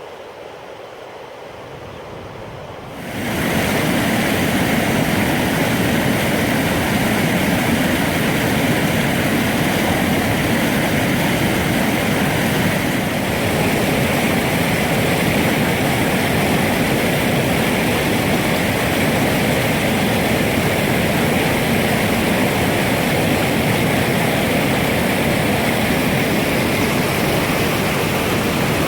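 Stream water rushing fast and steady, coming in abruptly and loud about three seconds in after a quieter steady noise.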